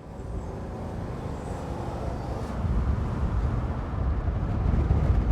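Low rumble of a vehicle on the move, fading in from silence and growing steadily louder.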